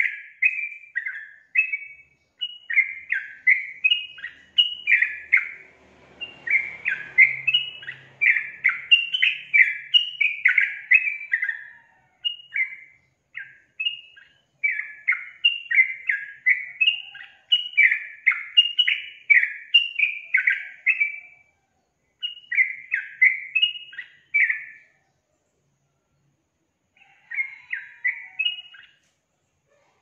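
Yellow-vented bulbul (trucukan) singing: long runs of quick chattering notes in phrases with short breaks, stopping about five seconds before the end and then giving one short last phrase.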